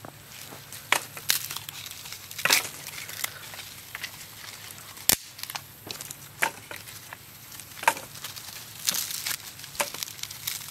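Dry leaves and twigs rustling and crackling as they are gathered up by hand from a forest-floor fire pit, with irregular sharp clicks and one sharper snap about halfway through.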